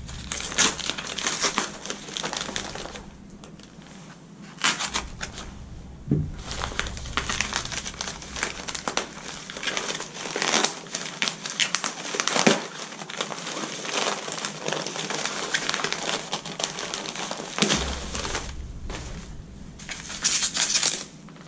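Packaging being unwrapped by hand: continuous crinkling and rustling of the wrapper with many sharp crackles, and bubble wrap being handled near the end.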